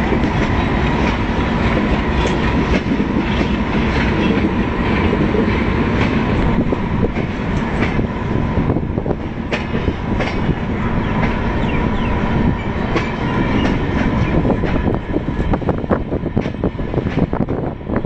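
Passenger train coach running over jointed track, heard from on board: a steady rumble of wheels on rails with a faint steady hum, and clicks from rail joints that come thicker near the end.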